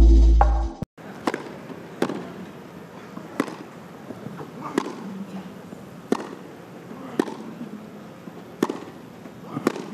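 Throbbing electronic music ends abruptly, then a tennis ball is struck back and forth in a grass-court baseline rally: eight sharp racket hits, one every second or so.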